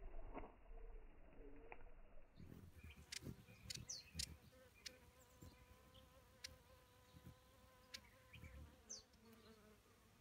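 Faint buzzing hum of a hovering hummingbird's wings, with a few short, high chip notes.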